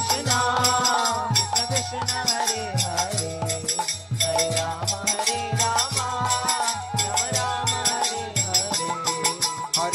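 Instrumental kirtan passage: a bansuri (bamboo flute) plays a gliding melody over harmonium, while karatalas (small brass hand cymbals) strike a steady beat and a drum keeps low strokes under it.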